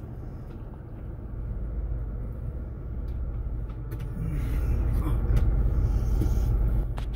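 Ford Bronco's engine and drivetrain rumbling low and steady from inside the cabin while crawling along a rocky off-road trail, growing louder about four seconds in.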